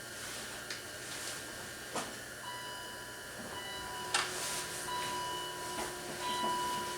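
A couple of sharp clicks, and from about two and a half seconds in a faint electric whine in several steady tones that cuts in and out, over a background hiss.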